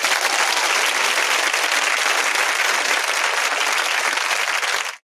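Crowd applause, starting abruptly and cutting off suddenly about five seconds in, as from a played-in sound effect.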